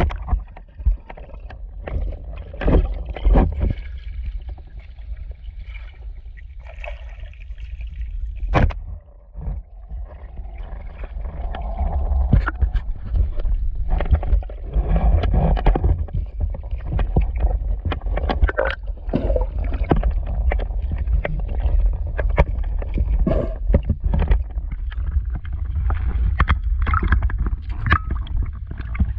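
Water gurgling and sloshing around the camera during a spearfishing dive, over a steady low rumble, with many scattered clicks and knocks.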